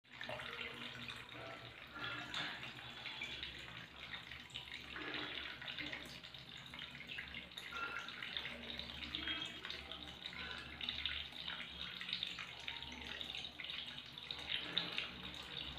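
Water running from a tap or pipe into a plastic mug and spilling over into a drum of standing water: a steady trickle with small splashing and dripping sounds.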